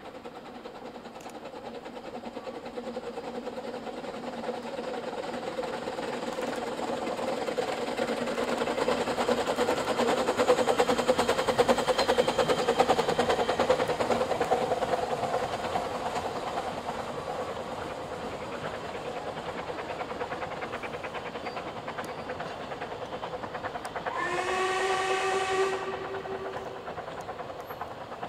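Narrow-gauge steam train passing: the locomotive working and the coaches' wheels running on the rails, building to a peak about halfway and then fading away. Near the end the locomotive's whistle sounds once for about two seconds.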